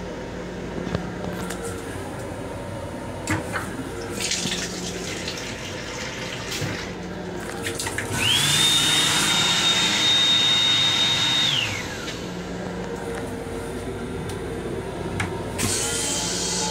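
Train toilet flushing: a motor whine rises quickly about eight seconds in and holds steady over a rush of air and water for about three seconds, then falls away.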